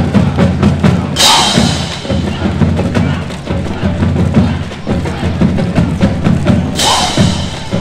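Marching band playing, with drums prominent. Two cymbal crashes come about a second in and again near the end.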